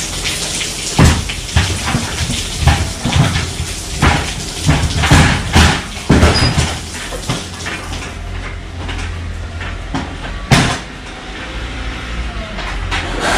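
Irregular knocks and bangs from loading work at a truck trailer, several in quick succession through the first half and one more sharp bang later, over a steady low engine hum and an even hiss.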